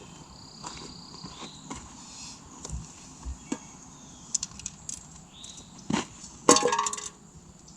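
A small steel gong target struck by a shot and ringing briefly with a metallic tone, about six and a half seconds in, just after a sharp snap of the shot. Faint scattered clicks and high chirps come before it.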